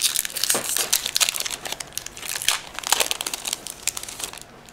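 Foil wrapper of a Pokémon TCG XY Flashfire booster pack crinkling and crackling in the hands as it is opened. The crackling is densest over the first three seconds and then thins out.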